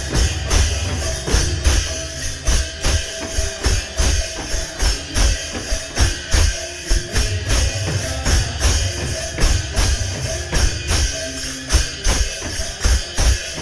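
Kirtan devotional music played without singing: a drum and jingling hand cymbals keep a fast, even beat.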